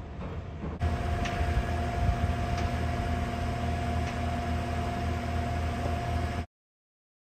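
Heavy construction machinery running steadily at a worksite, a low engine rumble with a steady high whine over it and a few faint ticks. It cuts off abruptly about six and a half seconds in.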